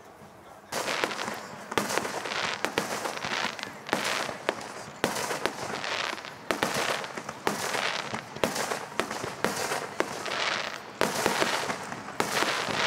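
Fireworks display: a rapid barrage of aerial shells bursting about twice a second, each bang trailed by a short hiss. It starts suddenly about a second in.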